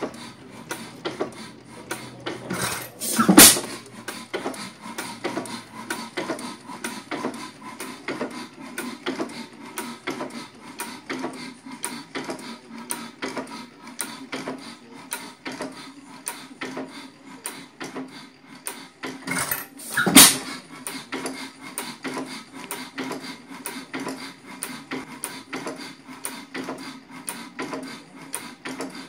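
4 HP Ohio sideshaft hit-and-miss engine running after restoration, coasting on its flywheels with a steady even clicking. It fires twice, about three seconds in and about twenty seconds in, each firing a single loud bang.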